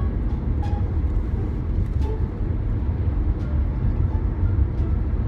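Steady road and engine rumble heard from inside a moving car's cabin, a deep drone with tyre noise over it and a few faint clicks.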